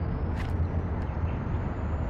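Steady low rumble of outdoor background noise, with one short sharp click about half a second in.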